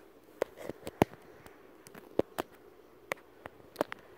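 Irregular run of about a dozen sharp taps and clicks: toys and a handheld phone knocking on a hard wooden floor during play.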